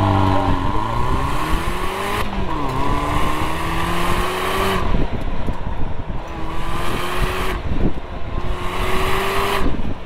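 GM Kappa roadster's four-cylinder engine pulling hard through an autocross course. It revs up in four climbs, each cut off about 2, 5, 7.5 and 9.5 seconds in as the throttle is lifted or a gear is changed.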